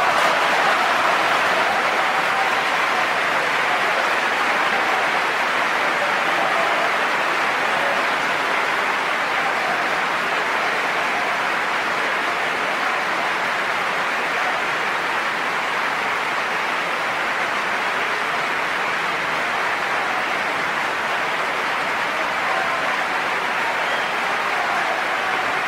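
Audience applauding a live opera performance: dense, steady clapping, with a few voices faintly calling out over it.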